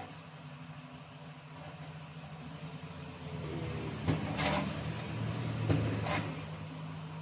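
A steel try square being shifted and lifted on a steel bar and workbench: a few short metal scrapes and knocks between about four and six seconds in. A steady low hum runs underneath.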